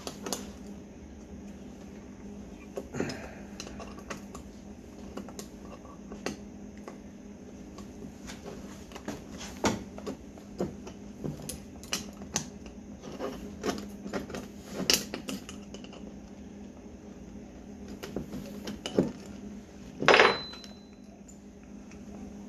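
Small metal carburetor parts and hand tools clinking and tapping against each other and the workbench, a scattered run of light clicks with a louder clatter near the end, over a steady low hum.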